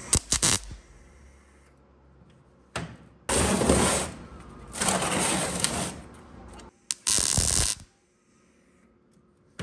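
MIG welder arc crackling in bursts while tack-welding angle-iron jaw plates onto a cast-iron vise: a few quick pops, then three welds of about a second each with short pauses between.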